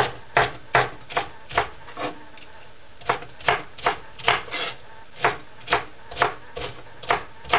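Large knife chopping bok choy on a wooden cutting board: a steady run of blade knocks on the board, about two to three a second, with a short pause around two seconds in before the chopping resumes.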